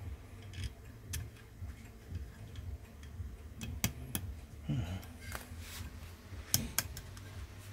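Sharp little metallic clicks and taps of the EDgun Matador R5M air rifle's action parts being pressed and fitted together by hand with a flat steel tool; about six of them, two close together a little before the middle and two more close together near the end.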